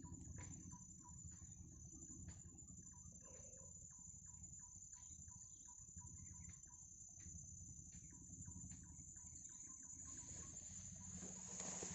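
Faint outdoor ambience: a steady high-pitched insect drone, with scattered light clicks over a low rumble that grows near the end.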